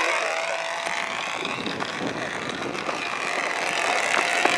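Control-line aerobatic model plane's small engine buzzing at a steady high pitch, fading and swelling as the plane circles on its lines.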